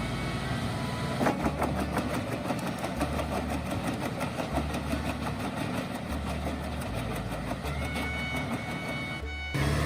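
Wood chipper running under load, its engine humming low beneath a dense crackle of wood being chipped from about a second in. The sound breaks off abruptly near the end.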